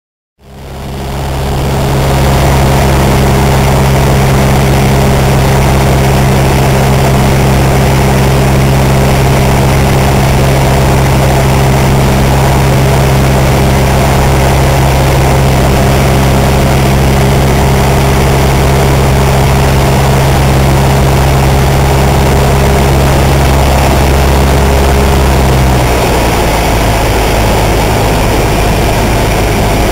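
Light aircraft's engine and propeller heard inside the cockpit, running at a steady drone that fades in quickly at the start. Near the end the engine note drops to a slightly lower pitch and the level dips a little.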